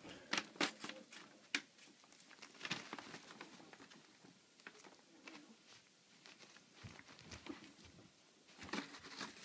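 A cat batting and pawing at a paper bag's handle: irregular rustling and scuffling, with a few sharp clicks scattered through, the sharpest about one and a half seconds in.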